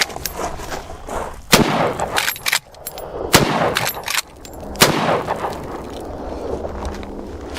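Three rifle shots from a .30-30 Marlin lever-action rifle, spaced a little under two seconds apart, the first, about a second and a half in, the loudest.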